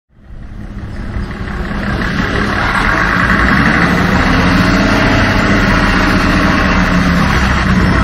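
Heavy truck engine running steadily, fading in over the first few seconds.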